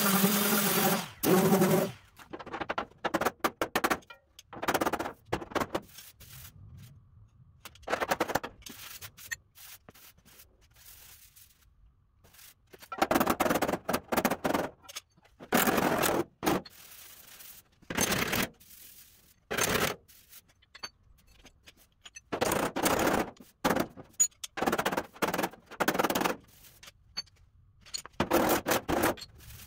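Metal hammering on the steel rear fender of a 1953 Chevy truck: short bursts of rapid sharp blows, with pauses of a second or more between them.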